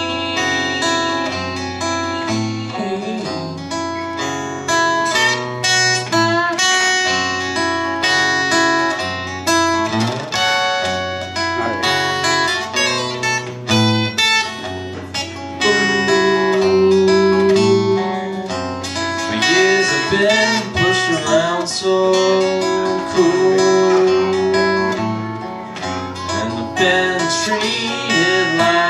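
Steel-string acoustic guitar strummed live, with a man singing a folk song over it.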